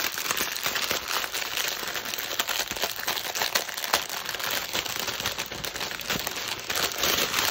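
Clear plastic packaging crinkling continuously as it is handled and unwrapped from around a bundle of small bags of diamond painting drills, with a steady crackle of many small clicks.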